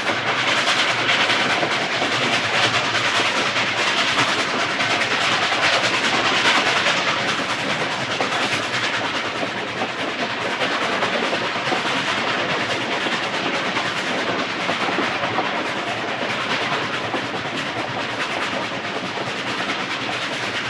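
A moving train: the steady running noise of rail cars on the track, with a dense rattle throughout.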